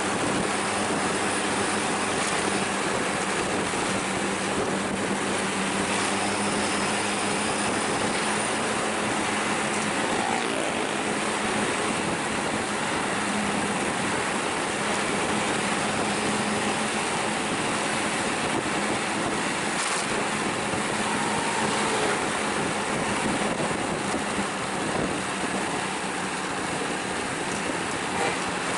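Steady vehicle driving noise: an even rush of road and wind noise with a low, steady engine hum. The hum is clearer for the first ten seconds or so.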